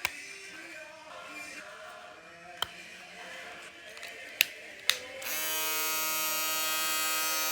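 A few sharp clicks over background music, then about five seconds in an Andis electric shaver switches on and runs with a steady buzz, its new motor and battery fitted.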